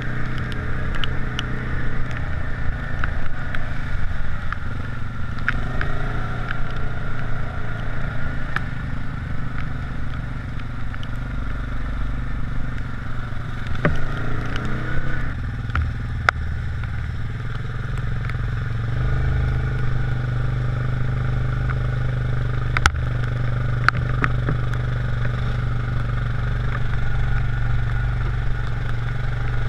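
An off-road vehicle's engine running steadily while under way, with scattered clicks and knocks from the machine rattling over rough ground.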